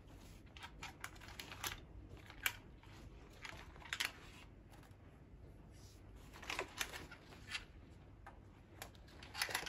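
Quiet handling noises: a scattering of short clicks and brief rustles as a nylon rifle sling and an airsoft M4 rifle are picked up and moved about.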